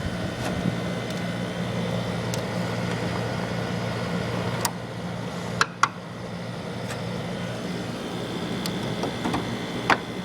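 1991 Friedrich Quietmaster 12,000 BTU window air conditioner running on low cool with a steady hum. A few sharp clicks and knocks come about halfway through and again near the end.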